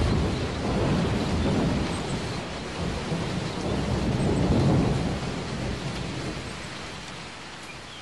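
A long roll of thunder over steady rain: the rumble breaks in suddenly, swells twice, then dies away slowly over the last few seconds.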